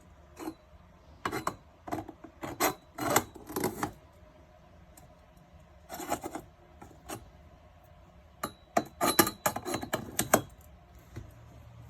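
Plastic and metal parts of a portable toilet chair clicking, clacking and rattling as they are handled and fitted together, in several short bursts. A low steady hum comes in near the end.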